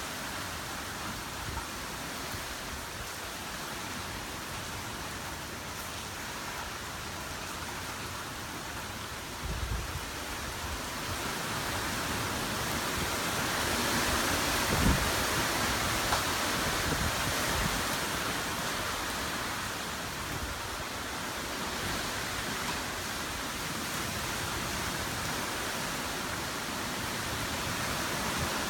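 Hurricane rain falling steadily on wet pavement, roofs and trees, with wind gusting through the trees. The rain swells louder in a gust through the middle, with a few low rumbles of wind on the microphone.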